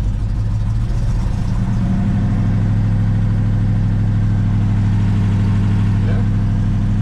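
1969 Chevelle SS's 454 big-block V8, bored 30 over, idling with a deep rumble through its factory exhaust, heard from inside the cabin. The idle rises slightly about two seconds in.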